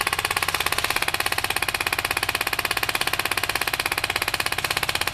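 VFC airsoft rifle firing one long full-auto burst, a fast, even rattle of about twenty shots a second that does not let up.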